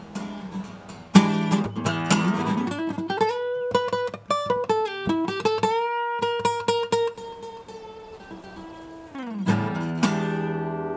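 Acoustic guitar music, quickly strummed and plucked, with a long held note that slides up in pitch about three seconds in. A strong new chord rings out near the end.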